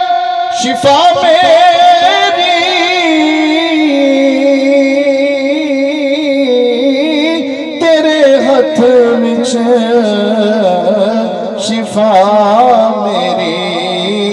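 A man's solo voice singing a devotional recitation into a microphone. He holds long notes with fast wavering ornaments, and the melody sinks step by step, with a short breath break about halfway through.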